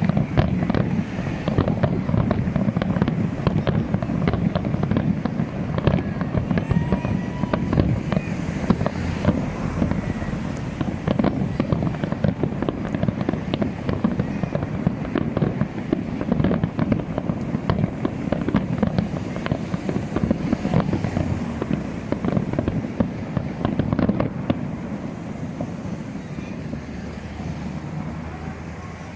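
Fireworks display going off in a dense, continuous barrage of bangs and crackles, easing off somewhat in the last few seconds.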